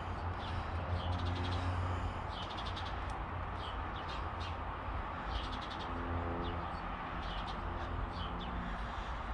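Birds chirping over and over in the background, over a steady low outdoor rumble with a faint intermittent hum.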